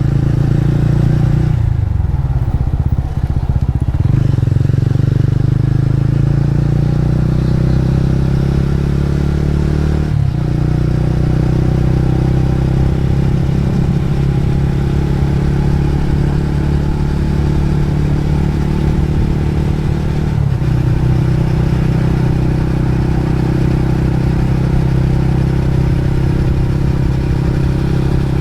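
Motorcycle engine running steadily while being ridden. Its note falls away about a second and a half in and recovers a couple of seconds later, with brief dips about ten and twenty seconds in.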